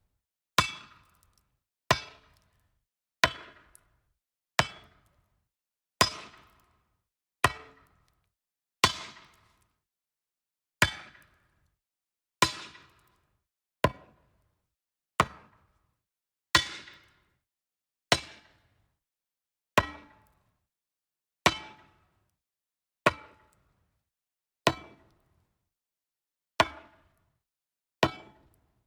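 Metal striking wood, over and over: single sharp strikes, each with a brief ringing decay, about one every one and a half seconds.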